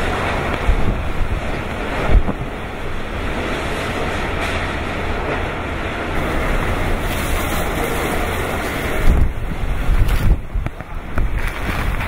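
Typhoon-force wind and driving rain of Super Typhoon Haiyan (Yolanda), a dense steady rush of noise. Gusts buffet the microphone with low rumbles, hardest about two seconds in and again near the end.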